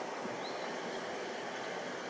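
Steady outdoor background noise: an even hum and hiss with no distinct events.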